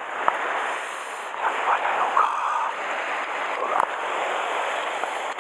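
Steady rush of sea surf washing over a rocky shore.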